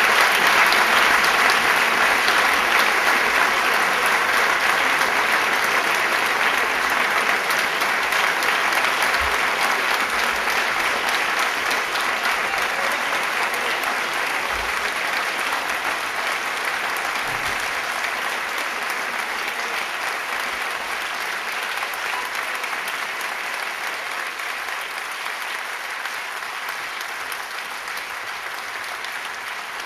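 Theatre audience applauding steadily, with the clapping gradually fading.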